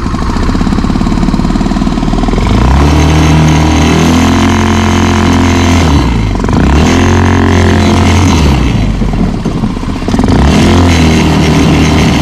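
Quad bike engine running and revving, its pitch rising and falling several times, with dips about six seconds in and again around nine to ten seconds in.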